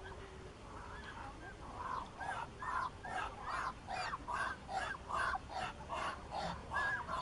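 Muscovy ducks calling: a run of short calls, two or three a second, starting faint and growing louder about two seconds in.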